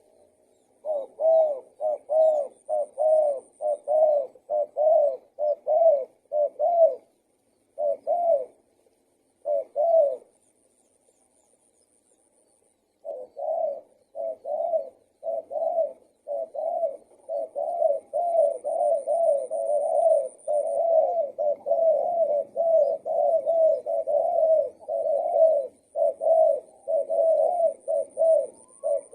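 Spotted dove cooing over and over, a long run of short low coos at about two a second. It breaks off for a couple of seconds about ten seconds in, then carries on.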